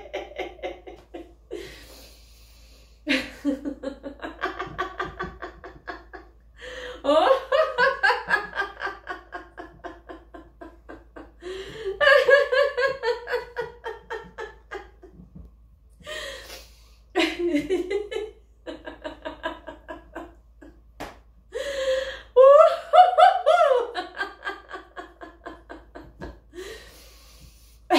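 A woman laughing in a laughter-yoga exercise. The laughter comes in bouts of a few seconds, each a rapid run of 'ha' pulses falling in pitch, with sharp inhalations between the bouts.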